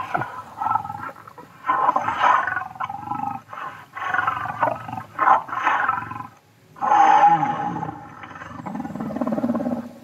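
A run of long, loud roars with short breaks between them, the loudest about seven seconds in.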